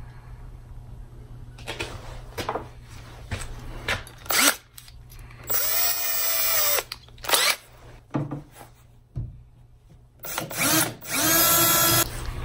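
Cordless drill motor spinning up in several short runs while a drill bit is fitted in its chuck, with a longer run that rises and holds steady near the end. The drill is being readied to pre-drill pilot holes for eye bolts. Light handling clicks come in between.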